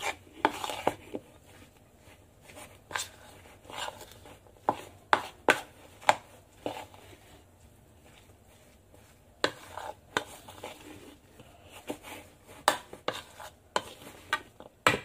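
A fork stirring thick corn fritter batter in a bowl, its tines knocking and scraping against the bowl in irregular strokes, with a pause of about two seconds past the middle.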